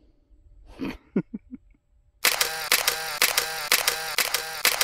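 Camera shutter sound effect clicking rapidly over and over, like a burst of photos. It starts about two seconds in and lasts about three seconds, then cuts off abruptly. Before it there is a short breath and a few small clicks.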